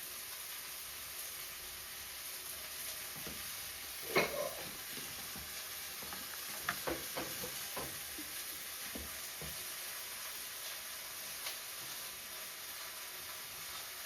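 Steady hiss with a few light clicks and knocks: one about four seconds in, a quick cluster a few seconds later, and a couple more after that.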